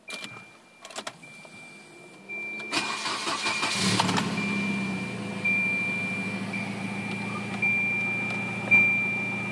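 1993 Volvo 940 Turbo's B230FT turbocharged four-cylinder cranking on the starter and catching about four seconds in, then idling steadily, a little loud through an exhaust the owner thinks has a hole or two. A few clicks come first, and a high, steady warning beep sounds through it all.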